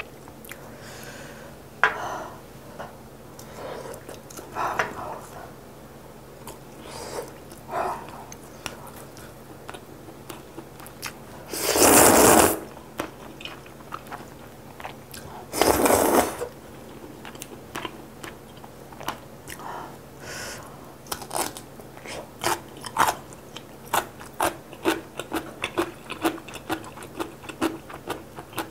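Close-miked slurping of spicy kalguksu noodles in two loud pulls near the middle, then chewing with quick crisp crunches, about three a second.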